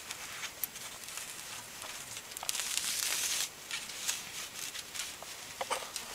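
Rustling and crinkling of a furled nylon mist net being handled and unrolled, with scattered small clicks and a louder rustle lasting about a second, midway through.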